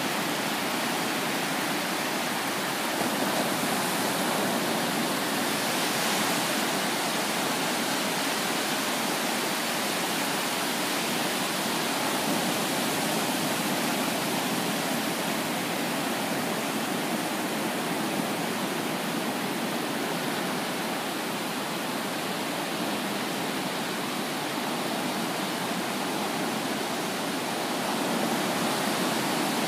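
Ocean surf: low waves breaking and washing up the sand in a steady rush, swelling a little louder now and then.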